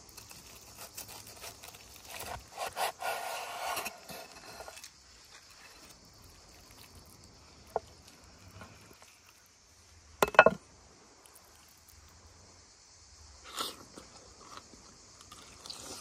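Cleaver cutting through a crispy breaded fried chicken sandwich on a wooden board: a couple of seconds of crunching and scraping, then a sharp chop with a brief metallic ring about ten seconds in, and a lighter knock a few seconds later. A steady high insect buzz runs underneath.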